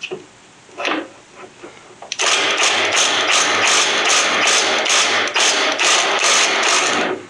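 Metal hand tools being rummaged through in a drawer or toolbox: a steady metallic clatter for about five seconds, pulsing about three times a second, after a single light click about a second in.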